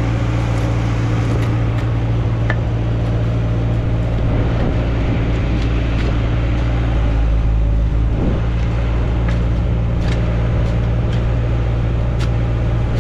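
Bobcat skid-steer loader's diesel engine running steadily, with a few sharp clinks and scrapes of shovels working sand rock over it.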